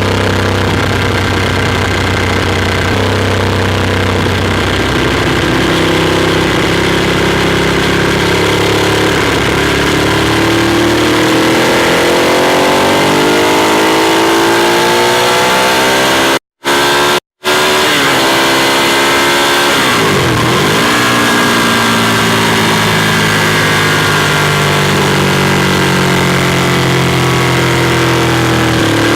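Ducati Monster 821's Testastretta V-twin engine under way, heard onboard as the revs rise and fall through the gears. The revs climb steadily, the sound cuts out completely twice in quick succession around the middle, and a little later the revs drop sharply and build again.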